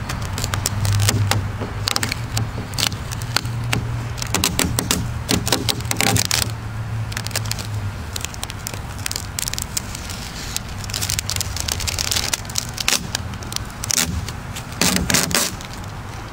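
Clear shipping tape crackling as it is peeled off a freshly spray-painted canoe hull, lifting the stencil mask from around the logo letters, in irregular clusters of crackles. A low hum sits under it for roughly the first half.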